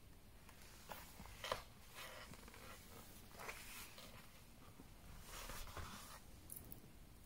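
Faint handling sounds of a thick leather traveller's notebook being closed and held: a few brief soft scrapes and rustles of leather and paper, the clearest about a second and a half in and a short cluster near the end.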